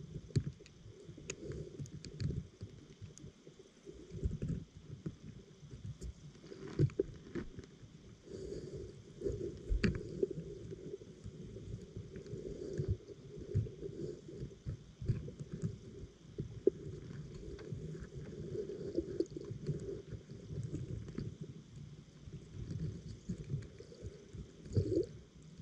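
Muffled underwater rumble of moving water, heard through a GoPro's waterproof housing, with a few sharp clicks scattered through it.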